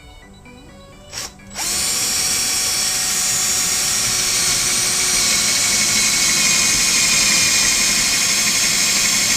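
Power drill given a brief trigger blip about a second in, then running steadily at full speed while boring a hole into the wall.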